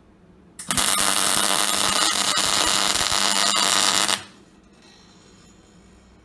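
MIG welding arc crackling steadily as laser-cut metal sculpture parts are welded together. It is one weld, starting under a second in and cutting off about four seconds in.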